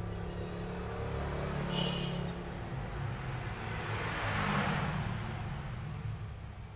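A steady low motor hum, like background traffic, swelling about four to five seconds in. Under it is faint scraping as a metal pry tool works along the edge of a cracked phone screen.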